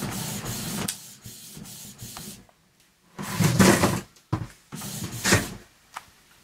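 Canon Pixma MX922 inkjet printer printing a CD label. For about the first second its print mechanism runs steadily with a light regular ticking. After a brief pause around two and a half seconds in, it makes several uneven bursts of motor and carriage movement.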